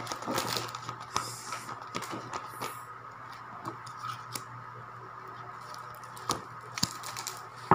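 A deck of tarot cards shuffled by hand: a quick run of papery flicks and taps, busiest in the first few seconds, then sparser clicks with a few sharper ones near the end. A faint steady hum runs underneath.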